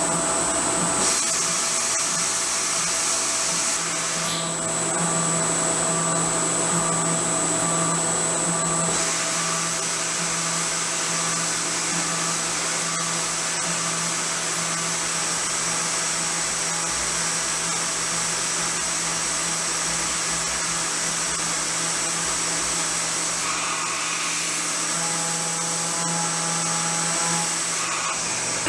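CNC vertical milling machine with its spindle at about 12,000 RPM, a helical end mill cutting A36 hot-rolled steel: a loud, steady machining whine and hiss. The sound changes character about a second in and again about nine seconds in as the cut changes.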